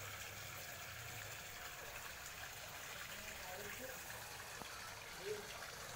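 Faint, steady trickle of water into a pond.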